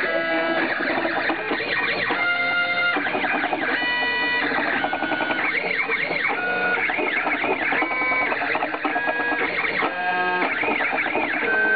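Stepper motors of a home-built CNC router driving its axes through a test program: a whining tone that holds one pitch for a moment and then jumps to another with each move, between repeated short rising-and-falling whines as the axes speed up and slow down.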